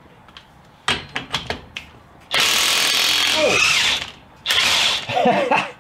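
DeWalt cordless impact wrench hammering on a tight front axle hub nut: a few light clicks, then a steady burst of about two seconds and a shorter second burst as the nut breaks loose.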